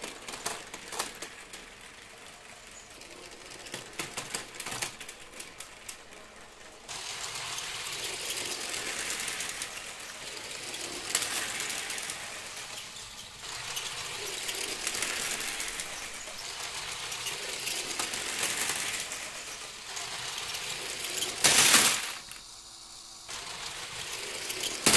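LEGO train running on plastic track, its small motor and wheels giving a steady rattling run with clicks over the rail joints. There are scattered clicks in the first few seconds and one short, loud clatter about 21 seconds in.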